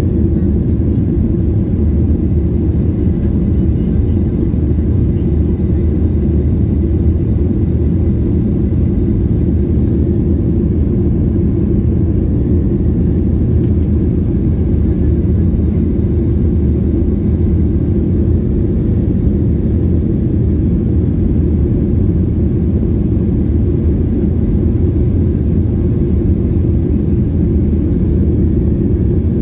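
Steady low rumble inside the cabin of a Boeing 737-800 climbing after takeoff: its CFM56-7B engines at climb power and the airflow over the fuselage.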